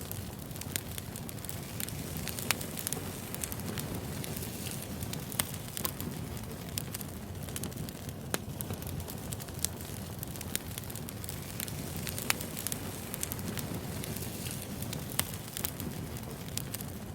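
Wood fire crackling: a steady low rumble of burning logs with frequent sharp, irregular pops and snaps.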